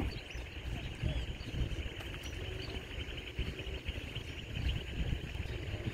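Outdoor ambience: a steady high chirring of small creatures over a low, uneven rumble. A faint steady hum comes in for a second or so in the middle.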